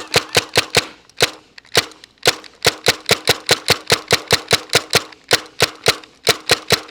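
Tippmann TMC mechanical paintball marker firing a rapid string of semi-automatic shots, about five a second, with two brief pauses in the trigger pulling.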